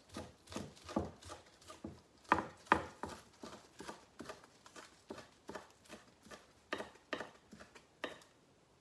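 Kitchen knife chopping green onions on a wooden cutting board: a run of sharp knocks, about two or three a second, that stops shortly before the end.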